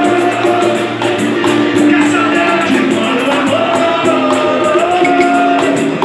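Live band music: a man singing into a microphone over cavaquinho, guitars and a steady percussion beat.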